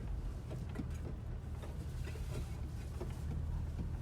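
Inside the cabin of a UAZ Patriot driving slowly over a field: a steady low rumble from the engine and running gear, with faint, irregular light knocks from the rear left of the interior. This is a rattle in the cabin that the owner has long been trying to trace.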